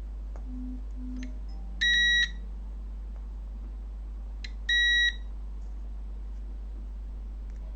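Digital multimeter's continuity tester beeping twice, two short steady high beeps about three seconds apart as the probes touch connected points on an amplifier's circuit board. A steady low mains hum runs underneath.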